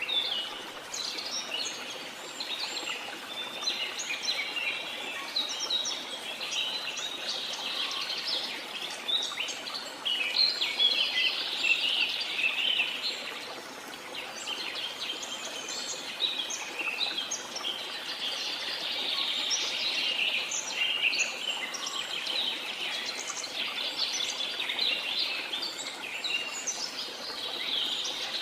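A dense chorus of many birds chirping and trilling in quick overlapping calls, over a steady hiss of falling water.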